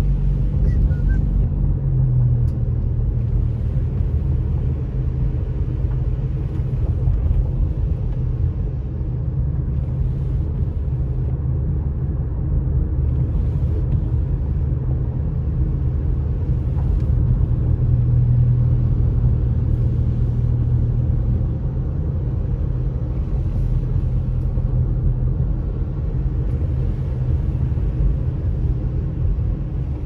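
Inside a moving car's cabin, a steady low hum from the engine mixes with the rumble of snow tires on a wet, snow-dusted road.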